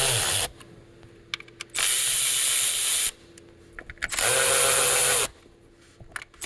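Short blasts from an air gun blowing dirt away from around the engine's coil packs: a loud hiss with a hum that rises as each blast starts and falls as it stops. One blast ends about half a second in, and two more follow, each lasting a second or so, with small clicks in the gaps between them.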